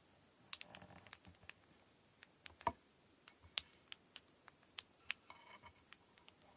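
Scattered light clicks and taps of hands handling kumihimo braiding tools and cotton thread during braid preparation, with one firmer knock about two and a half seconds in.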